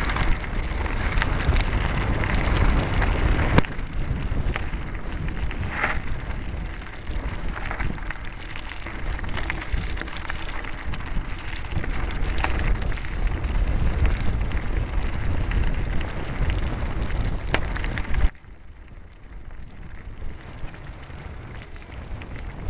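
Mountain bike rolling fast down a loose gravel track: tyres crunching and the bike rattling, with wind rumbling on the microphone and a few sharp knocks over bumps. About eighteen seconds in it suddenly gets much quieter as the tyres come onto smooth asphalt.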